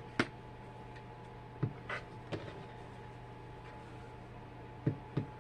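Scissors snipping the corner tips off sewn fabric: a handful of short, sharp clicks spaced irregularly, over a steady low hum.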